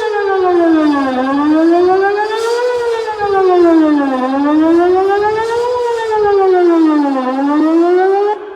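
Whelen WPS-2810 electronic outdoor warning siren sounding a wail during a test: a loud tone that rises and falls smoothly, each sweep up and back down taking about three seconds. It cuts off abruptly near the end.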